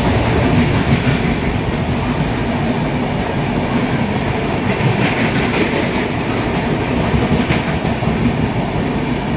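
Passenger train's coaches rolling past a platform: steady, loud running noise of wheels on the track.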